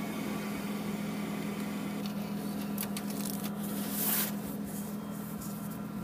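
A steady low hum inside a car cabin, with a few brief rustles about three and four seconds in.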